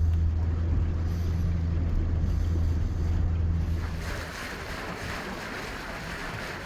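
Boat engine running steadily under way, a low hum; about four seconds in it drops away and a steady hiss of water and wind takes over.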